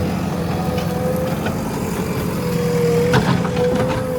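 Diesel engine of a JCB 3DX backhoe loader running steadily with a steady whine over the rumble, and a few knocks about three seconds in.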